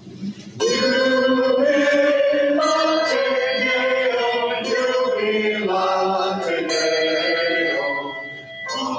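Small mixed-voice church choir singing a hymn, coming in about half a second in with long held notes.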